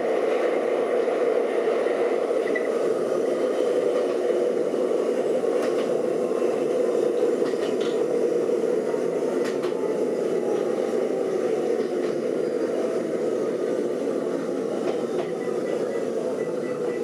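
Kobe Electric Railway electric train running on the rails, heard from inside the car, with a steady rumble and a faint motor whine that slowly falls in pitch as the train slows into a station.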